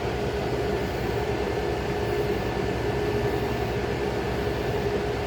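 A 35-year-old General Electric Carry Cool window air conditioner running steadily: an even blowing noise with a constant hum from its compressor and fan.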